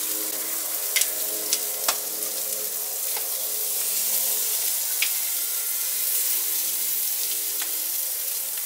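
Short-rib tablitas and fajita meat sizzling on grill grates over an open post oak and charcoal fire, a steady hiss, with a few sharp metal clicks of tongs as pieces are pulled off the grate.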